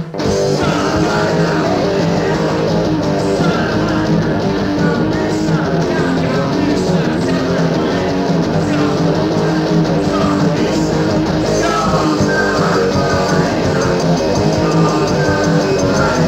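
Rock band recording with electric guitar, bass and drums, the full band coming in loudly all at once at the start and playing on steadily. A bright, regular cymbal pattern joins about two-thirds of the way through.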